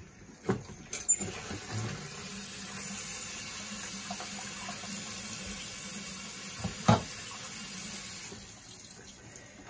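Kitchen tap running steadily into a stainless steel sink for about seven seconds, then shut off. Sharp knocks of dishes or utensils come near the start, and the loudest comes about seven seconds in.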